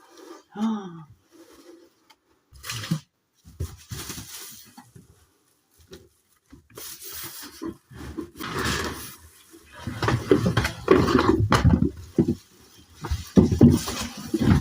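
Packaging being handled: irregular rustling, scraping and dull knocks, busiest in the second half, with a brief falling vocal sound about half a second in.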